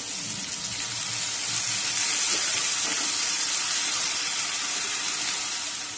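Water poured into a hot pan of frying onion, tomato and spice paste, the oil sizzling and hissing hard as the water hits, strongest about two seconds in and easing off near the end.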